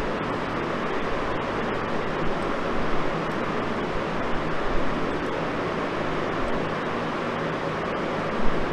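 Steady background noise: an even hiss with a faint low hum underneath, with a few brief soft bumps, the last and loudest near the end.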